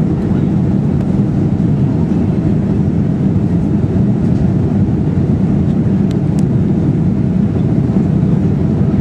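Steady cabin noise inside a Boeing 737-400 descending on approach with its flaps extended: an even rush of air mixed with the drone of its CFM56 engines, heard from a window seat over the wing.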